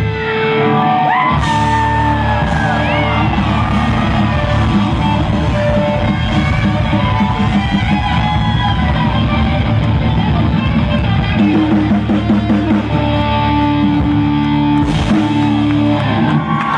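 Live hard-rock band playing loud: drum kit, bass guitar and electric guitar together, with the guitar bending notes up and down.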